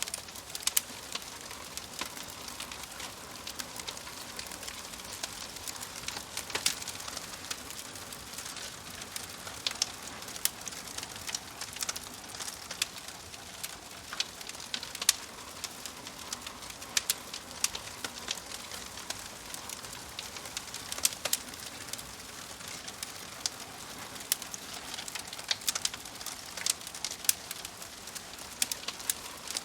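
Wood fire crackling: irregular sharp pops and snaps, several a second at times, over a steady hiss.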